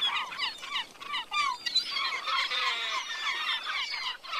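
A flock of gulls calling: many short calls overlap one another throughout, several of them sliding down in pitch.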